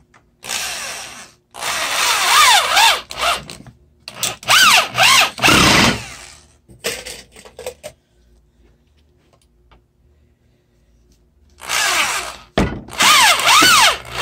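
Corded electric drill driving wood screws into a pine 2x4, run in short bursts with the motor speeding up and slowing down on the trigger. There is a pause of a few seconds in the middle before the next screw is driven.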